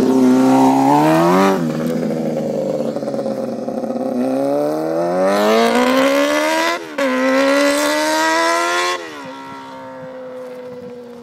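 Honda CBR250RR motorcycle engine, run with no exhaust, revving hard as the bike accelerates away. The pitch climbs through each gear and drops sharply at the shifts about a second and a half and seven seconds in. About nine seconds in it backs off, and the note falls and fades as the bike recedes.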